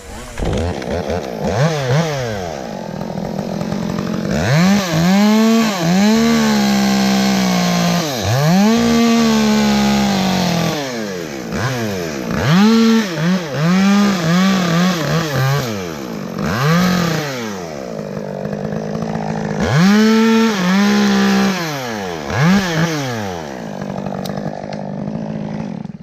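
Chainsaw cutting into a cypress tree, its engine revving up and dropping back over and over, with longer stretches held at full throttle about five to ten seconds in and again around twenty seconds in.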